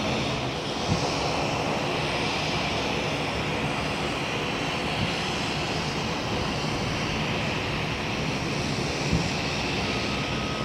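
Jet noise from a climbing Boeing 747-400 freighter's four engines at takeoff power: a steady, dense roar with a strong hissing band high up, holding level as the jet climbs away.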